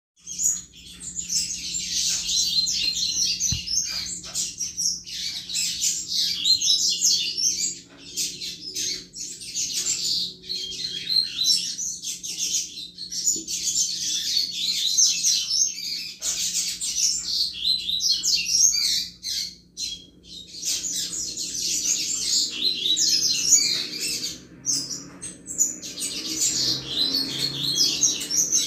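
Double-collared seedeater (coleiro) singing its 'chuva' song: long runs of rapid, high twittering notes in phrases several seconds long, with short pauses between them.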